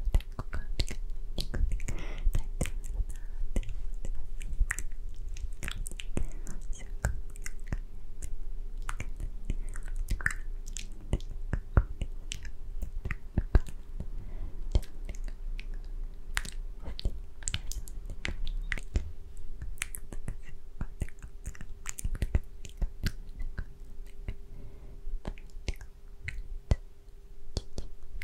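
Close-miked wet mouth sounds: quick tongue and lip clicks in a dense, irregular stream, with soft unintelligible whispering between them.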